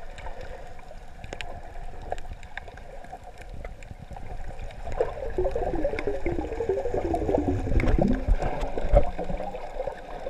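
Muffled underwater water noise heard through a GoPro's waterproof housing: a steady low rumble, then a louder stretch of bubbling gurgles from about halfway in, with a few dull knocks near the end.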